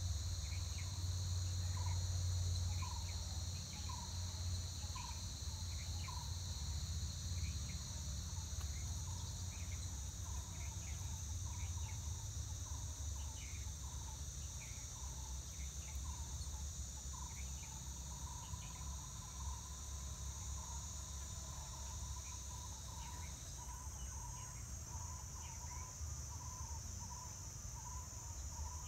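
Continuous high-pitched insect chorus of forest crickets or cicadas, in two steady high bands; the lower band stops about two-thirds of the way through. Over it come short repeated calls about once a second, and under it a steady low rumble.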